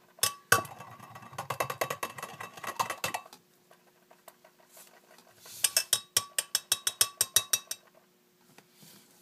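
A utensil stirring soap batter in a container, scraping and knocking against its sides. A busy stretch of scraping and clicks comes first, then after a pause a quick, even run of taps, about five a second.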